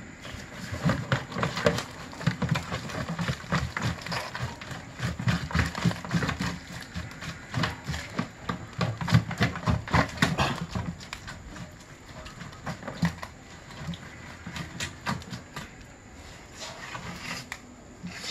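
A catch of live blue crabs and fish being shaken out of a plastic jerry can onto a sack: a busy clatter of knocks, clicks of crab shells and dull thuds against the plastic, thickest in the first ten seconds and thinning out after.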